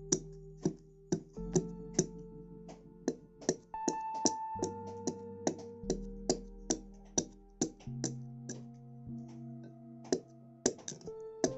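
Background music: electronic keyboard chords changing every second or two over a quick, steady clicking beat.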